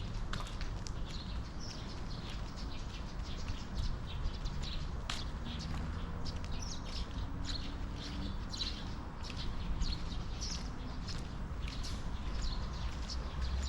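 Footsteps of a person walking on pavement, short clicks at a walking pace, with birds chirping over a low steady outdoor rumble.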